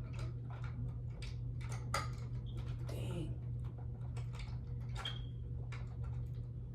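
Irregular plastic clicks and taps from a smoke detector being handled and pushed into place, over a steady low hum.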